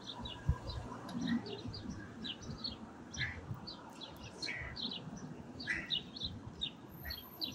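Small birds chirping in quick, short, irregular calls, over faint low handling noise from a tyre being worked onto a spoked rim by hand.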